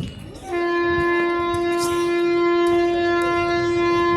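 WAP7 electric locomotive horn sounding one long, steady, shrill blast, starting about half a second in.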